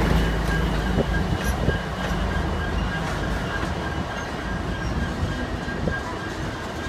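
Freight train departing past: the diesel rumble of the trailing locomotive eases about two seconds in, leaving covered hopper cars rolling by. A thin steady wheel squeal runs under it, with a few short clanks.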